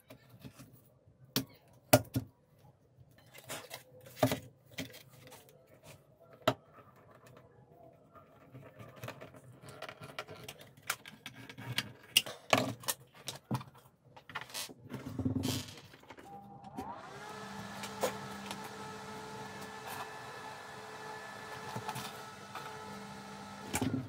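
Clicks and knocks of hand tools and plastic parts being handled and screwed together, then about 17 seconds in a square computer-style axial fan spins up with a quickly rising hum and runs steadily for about seven seconds before cutting off abruptly just before the end, blowing the vent's louvred flaps open as it runs.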